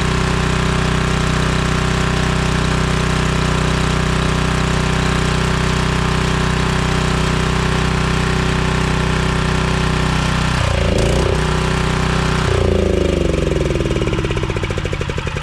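Portable generator's Honda engine running steadily with its air filter removed, then faltering about ten and a half seconds in and winding down, its pitch falling as it dies near the end. The engine won't stay running, which the owner takes as a sign that the trouble is not the air filter but perhaps the fuel.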